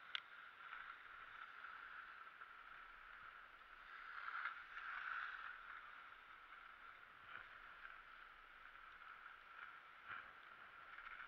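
Faint hiss of skis sliding over snow, swelling for a second or so about four seconds in.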